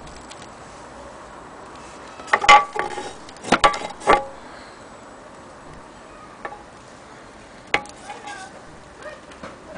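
Metal parts of an antique gramophone clinking and knocking as they are handled: a cluster of sharp knocks with brief ringing between about two and four seconds in, and one more near the end.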